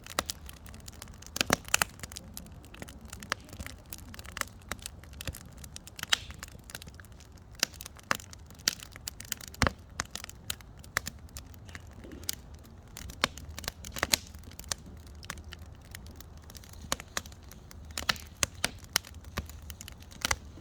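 Wood campfire crackling, with irregular sharp pops and snaps, several of them louder, over a low steady rumble.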